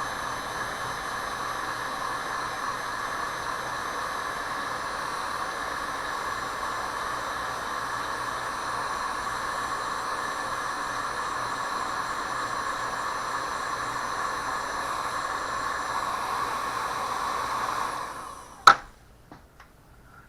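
Heat gun running on its low setting, a steady blowing hiss with a hum, shrinking heat-shrink tubing over soldered wire. It winds down near the end, followed by a single sharp click.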